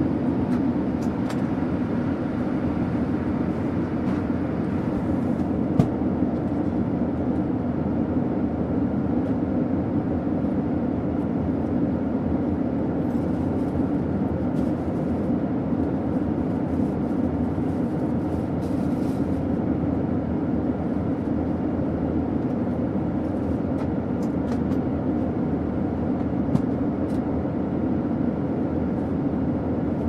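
Airliner cabin noise in cruise flight: a steady, even drone of the engines and rushing air. There are two faint ticks, one about six seconds in and one near the end.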